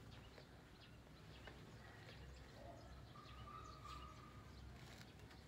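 Near silence: faint room tone with a few soft clicks, and a faint thin tone lasting about a second, starting around three seconds in.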